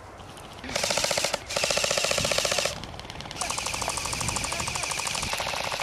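Airsoft rifles firing rapid full-auto bursts: two short loud bursts close together, then a quieter, longer burst from about halfway through.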